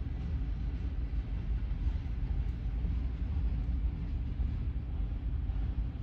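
Freight train of covered hopper cars rolling through a grade crossing: a steady low rumble of wheels on rail.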